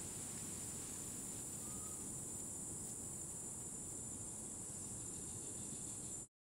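Steady high-pitched insect drone over low forest hiss, with a faint brief chirp about two seconds in; it cuts off suddenly near the end.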